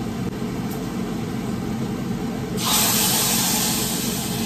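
A hot frying pan sizzling and hissing with steam, starting suddenly about two and a half seconds in, over a steady low hum.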